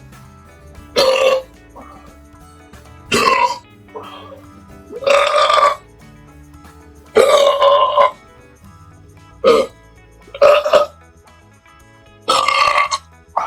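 A person belching loudly again and again: about eight burps one to two seconds apart, some short and some long and drawn out, over quiet background music.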